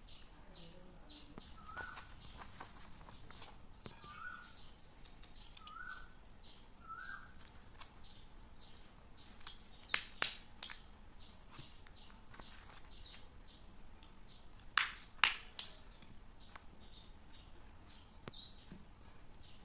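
Paper and a craft sheet being handled on a cloth-covered table: soft rustles with a few sharp clicks and taps, two close together about ten seconds in and three about fifteen seconds in. Four short rising chirps from a bird sound between about two and seven seconds in.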